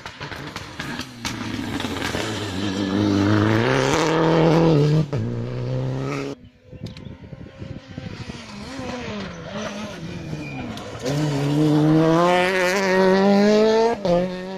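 Rally car engines revving hard at full throttle, pitch climbing and dropping back at each gear change. The sound breaks off abruptly about six seconds in, and another car accelerates hard through the gears near the end.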